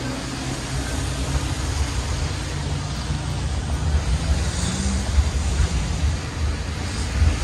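City traffic on a rain-wet street: cars passing with a steady hiss of tyres on wet road, over a low, uneven rumble.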